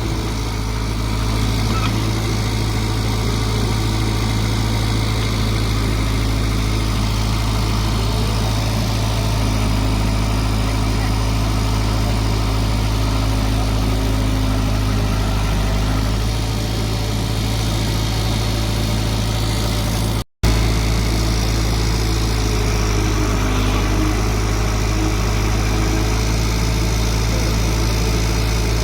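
Diesel engine of an amphibious (floating) excavator running steadily with a deep, even drone. The sound cuts out for an instant about two-thirds of the way through.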